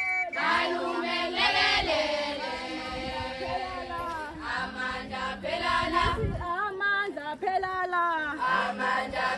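A group of women's and girls' voices singing together in a chant-like traditional Zulu song.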